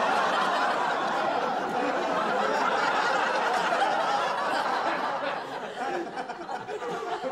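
Audience laughter from a sitcom laugh track, a dense crowd of laughing voices, steady for about five seconds and then dying away near the end.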